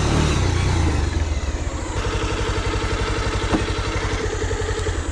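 Motorcycle engine running on the move, its note dropping about half a second in to a slower, evenly pulsing beat.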